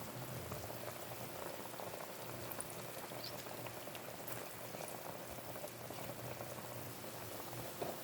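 Chicken mechado in tomato sauce bubbling steadily in a pot as it simmers, with scattered small pops.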